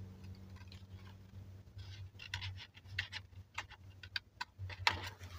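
Faint, irregular small clicks and taps over a low steady hum, more of them in the second half.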